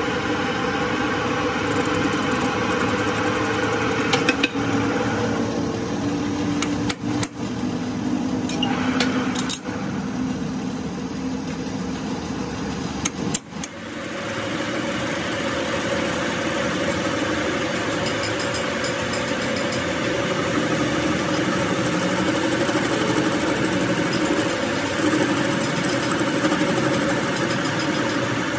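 Metal lathe running, with a steel bar spinning in its four-jaw chuck while the lathe tool faces its end: a steady machine hum with cutting noise. A few sharp clicks come in the first half, and the sound dips briefly about halfway through.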